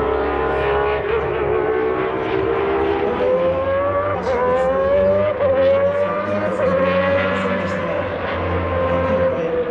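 Historic Honda V12 Formula One car running on the circuit: one steady engine note that climbs slowly in pitch, with a few small dips along the way.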